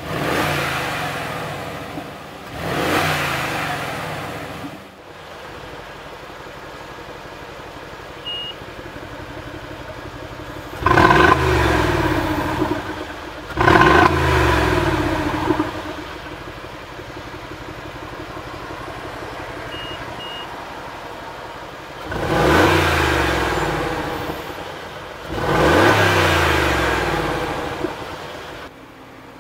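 Twin-turbo V8 of a Mercedes-Benz G500 4x4² through a BRABUS valve-controlled exhaust, revved in short throttle blips with a steady idle between them. Two blips at the start are in quiet mode. The two much louder blips in the middle come with the exhaust valves opened by push button, and two more follow near the end. A short beep is heard twice during the idle.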